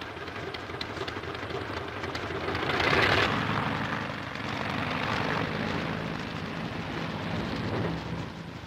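Avro Anson's engines running: a rushing drone with a low steady hum beneath it that swells to its loudest about three seconds in, then eases. It comes from an old wartime film soundtrack played through a loudspeaker.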